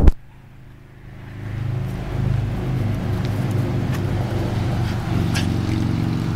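A sharp knock at the start, then a motor running steadily, swelling over the first two seconds and holding at one pitch.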